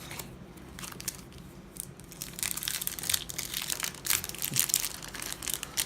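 Crinkling and crackling of a Yu-Gi-Oh booster pack's foil wrapper being handled and torn open. It is sparse at first and becomes a busier run of crackles from about two seconds in.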